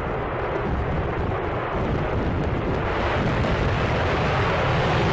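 F-15E Strike Eagle's twin jet engines at takeoff power, a continuous deep rumbling roar as the fighter lifts off the runway. The roar grows louder and hissier over the last couple of seconds.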